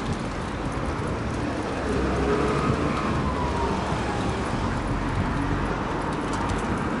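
Steady outdoor rumble of road traffic, with a faint tone sliding down in pitch about two to four seconds in, as of a vehicle passing.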